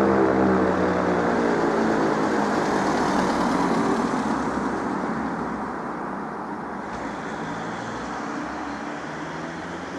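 E57 electro-mechanical siren spinning down after a tone of the fire-alarm signal: its falling tone fades out over the first three or four seconds. Steady traffic-like rumble follows.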